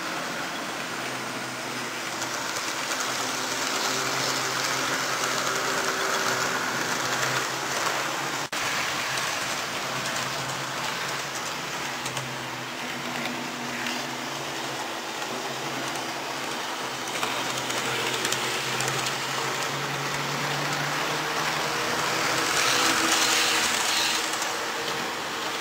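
Model trains running on the layout: a steady whirring rattle of small electric motors and wheels on metal track, louder near the end as a coach passes close by.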